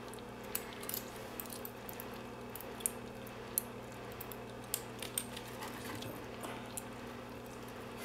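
Lock pick working the pins inside the keyway of a brass pin-tumbler padlock: scattered light, irregular clicks. Under it runs a steady low hum.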